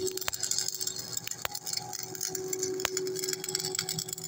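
Stick (rod-electrode) arc welding on a steel shaft: the arc crackles and sizzles steadily, with scattered sharp pops, the loudest right at the start, over a steady hum.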